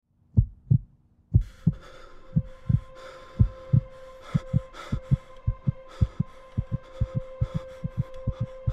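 A heartbeat thumping in lub-dub pairs that come faster and faster, like a racing heart in a panic attack. A steady high tone sets in under it about a second and a half in.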